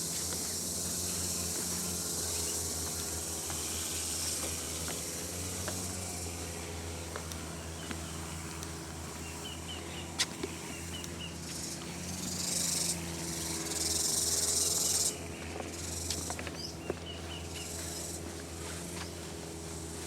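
Forest insects buzzing in a steady high-pitched drone; a louder shrill buzz starts about twelve seconds in and stops abruptly about three seconds later. A sharp click comes about ten seconds in.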